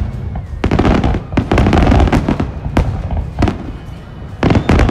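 Aerial fireworks shells bursting in rapid barrages: sharp bangs in quick succession with crackling between them, with a fresh cluster of loud bangs near the end.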